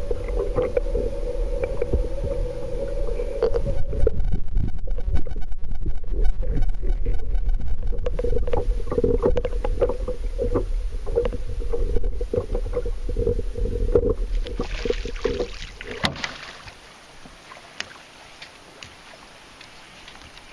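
Sound picked up underwater by a camera while a hooked smallmouth bass is played on the line: a steady low rumble and hum with many sharp clicks and ticks, loudest and busiest about four to eight seconds in. It cuts off about sixteen seconds in, leaving a much quieter open-air background with a few faint ticks.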